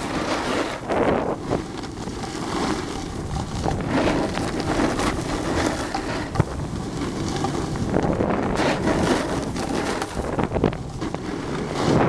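Wind rushing and buffeting over the camera's microphone while the skier carrying it moves down the slope, rising and falling unevenly.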